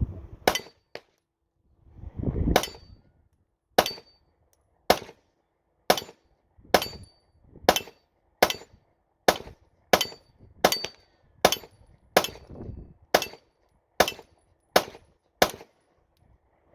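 A 9mm Glock-pattern pistol fired at a steady pace, about seventeen shots roughly one a second, running through a full KCI USA aftermarket magazine. It shows no stoppage, and the magazine feeds without a malfunction.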